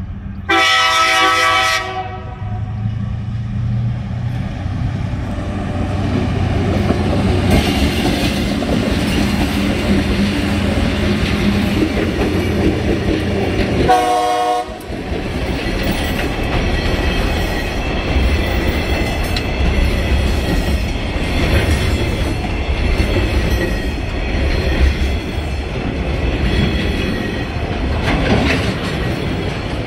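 TasRail diesel freight locomotives sounding their horn for a level crossing: one long blast about half a second in and a short one about halfway. The locomotives' diesel engines rumble past, followed by empty log wagons and coal hoppers with steady clickety-clack over the rail joints.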